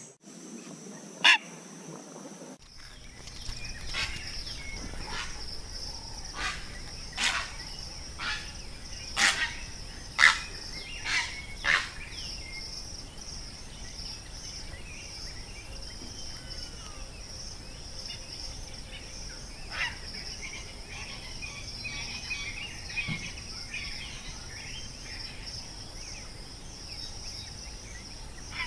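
Steady high-pitched insect drone, with a run of sharp short calls or clicks about once a second from roughly 4 to 12 seconds in and a few faint bird chirps later.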